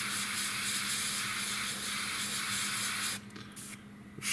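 Airbrush spraying thinned primer onto a small part in a steady hiss, which cuts off for about a second near the end and then starts again.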